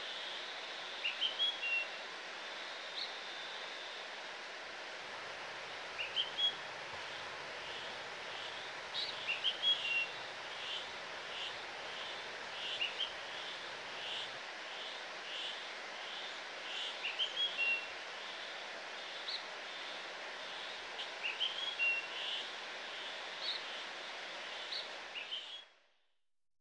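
River water rushing steadily, with birds chirping over it, one giving a short call again and again about twice a second. The sound cuts off suddenly near the end.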